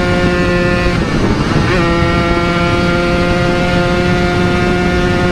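Yamaha RX-King 135cc two-stroke single-cylinder engine running at steady high revs through an aftermarket CRC Series Repsol exhaust while riding. About a second in the note drops out briefly and comes back at a steady pitch, with wind noise on the microphone.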